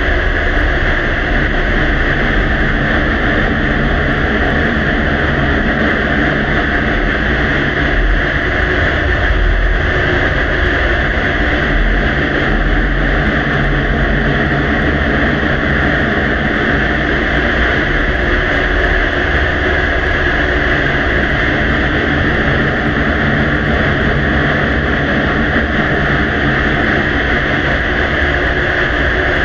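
Steady loud hiss with a low rumble underneath, the background noise of a faint recording amplified far up. It never changes and holds no distinct clicks or voices.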